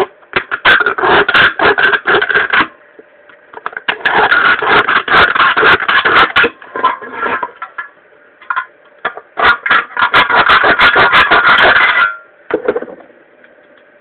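Small pocket-knife scissors cutting and crinkling the thin aluminium of a pop can: dense, loud crackly scraping in three spells of two to three seconds each, with short pauses between.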